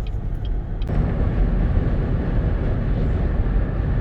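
Car road and engine noise heard from inside the cabin while driving: a steady low rumble that gets louder and rougher about a second in.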